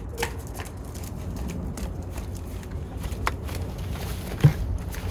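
Scattered light clicks and knocks of a car door's plastic trim panel being handled, with one louder knock about four and a half seconds in, over a steady low hum.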